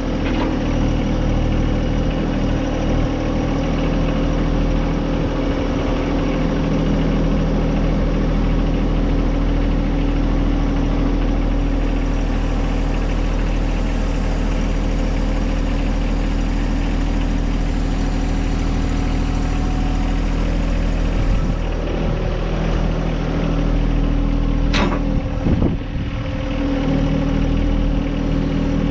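Tractor engine running steadily, with a brief sharp knock near the end.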